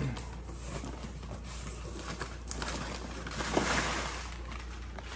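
Cardboard shipping box being opened by hand: the flaps folded back and the cardboard scraping and rustling, louder about three and a half seconds in.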